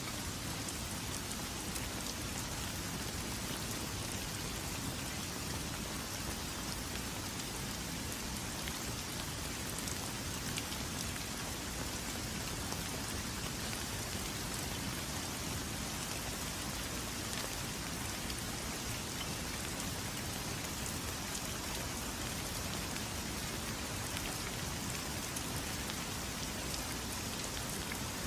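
Steady rain falling, an even hiss with faint ticks of single drops, heard by a window.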